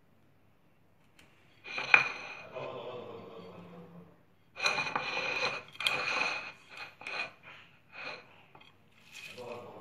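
A glass bowl of raw shrimp being handled and shifted on a counter. A sharp clink about two seconds in is followed by several irregular bursts of scraping and rustling, with a ringing note of the glass running through them.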